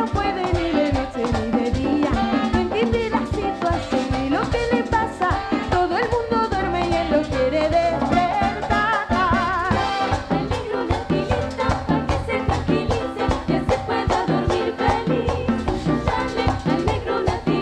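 Latin dance band playing, with women singing over drums and percussion in a steady, fast beat.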